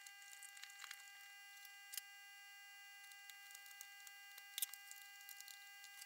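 Faint clicks and light ticks of the Zoom 9002's plastic case and circuit boards being handled and fitted back together, with a sharper click about four and a half seconds in, over a faint steady tone.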